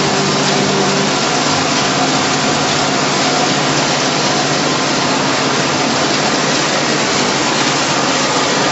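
A PP/PE film crushing and washing recycling line running: a loud, steady noise of industrial machinery. A hum under it fades out about a second in.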